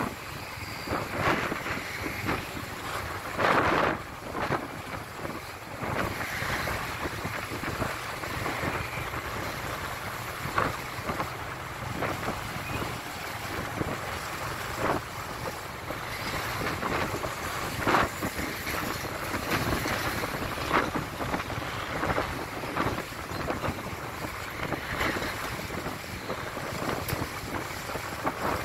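Wind buffeting the microphone in irregular gusts, over the steady noise of slow road traffic among container trucks.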